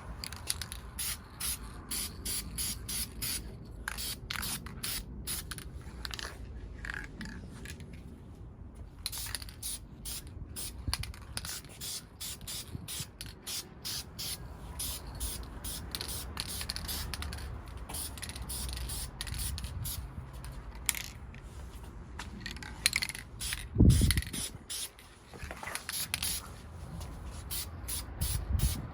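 Aerosol spray-paint can hissing in many short, quick bursts as a first light coat goes onto brake calipers. A single loud thump about 24 seconds in.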